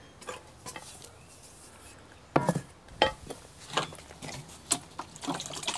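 A steel shovel and hands working a damp sand-and-cement setting bed: a few short scrapes and knocks, the loudest about two and a half seconds in.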